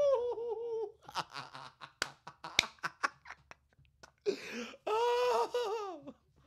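A woman laughing: a long wavering laugh, then a run of short breathy pulses, then a sharp breath and another long wavering laugh near the end.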